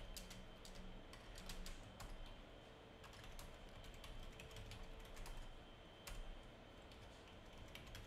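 Soft computer keyboard typing: quick, irregular keystrokes throughout.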